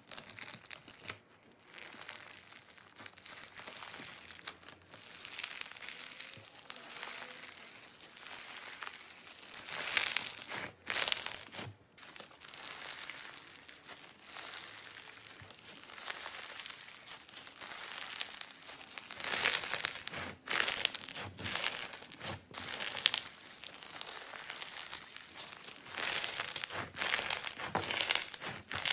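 Slime being squeezed and kneaded by hand, giving a dense, irregular crackle with louder squishing spells about a third of the way in and again near the end.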